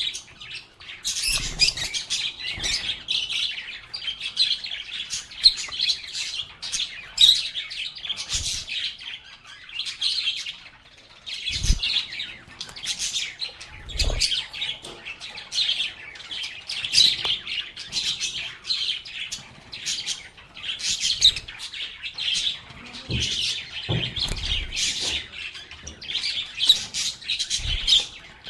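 A group of lovebirds (Agapornis) chirping and chattering continuously in a rapid, high-pitched stream, with a few soft low thuds mixed in.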